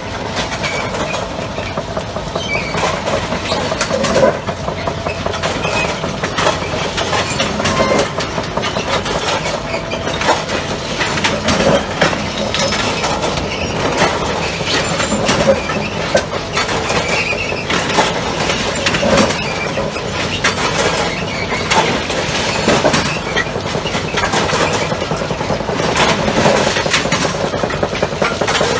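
Railway worksite train at work: steady loud machinery running, with frequent irregular metal clanks and knocks throughout.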